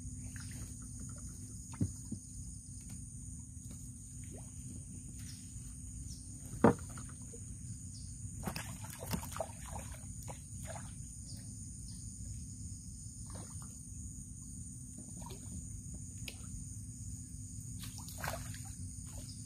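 A steady high insect chorus over low water and boat noise. Scattered knocks against a boat hull and small splashes come as a fisherman works his line over the side, with one sharp knock about a third of the way in.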